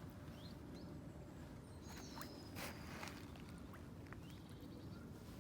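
Faint outdoor lakeside ambience: a steady low rumble, a few faint bird chirps, and a single sharp click about two and a half seconds in.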